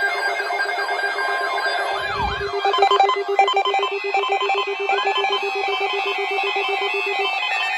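Several electronic alert alarms sounding at once, as weather alert radios do when an alert comes in. A rapid pulsing beep runs under rising and falling siren-like sweeps and shorter repeated beeps, with a dull bump about two seconds in.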